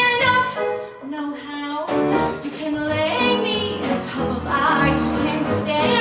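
A woman singing a cabaret song with a live band of piano, guitar, bass and drums. The band thins out briefly about a second in and comes back in at about two seconds.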